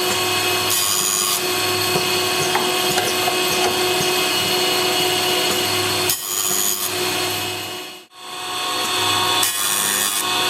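Automatic saw blade sharpening machine grinding the carbide teeth of a circular saw blade in automatic mode: the grinding wheel motor runs steadily with a continuous grinding rasp, and brief harsher, hissier spells come now and then. The sound cuts out briefly twice.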